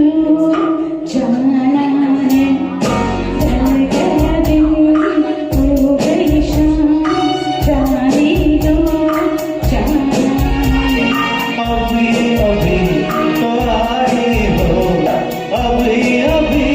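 Music from a live performance of a Hindi film song: a melody line over bass and a steady beat. The ticking percussion comes in about three seconds in.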